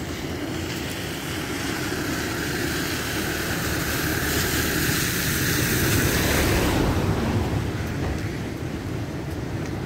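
Fast-flowing floodwater of a swollen river rushing under a bridge: a steady noisy roar that swells for a few seconds in the middle, loudest about six seconds in, then eases.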